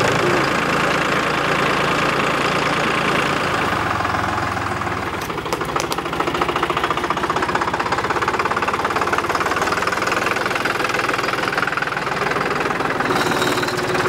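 Farm tractor's diesel engine running steadily, dipping slightly in loudness about five to six seconds in.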